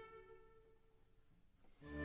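Bowed string music dying away into a near-silent pause; just before the end, low bowed strings start up again.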